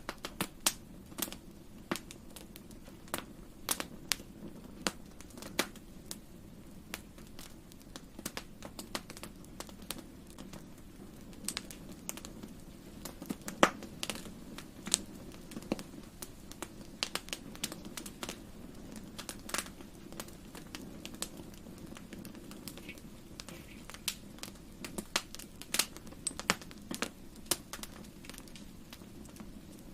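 Wood fire in a fireplace crackling, with irregular sharp pops and snaps of varying loudness over a soft, steady low rumble.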